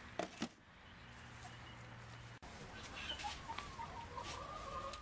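Two sharp knocks near the start, then domestic chickens clucking from about three seconds in.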